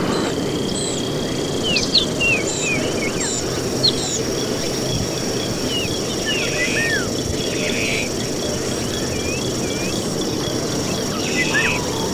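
Jungle ambience: many short chirps and whistles over a steady high insect-like buzz and a constant background noise bed, with a steady lower whistle joining near the end.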